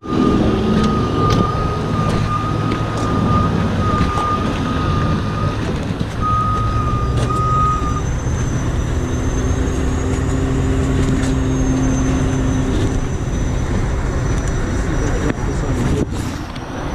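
A heavy recovery truck's diesel engine running steadily, with a steady high-pitched whine over it for about the first eight seconds that breaks off briefly midway.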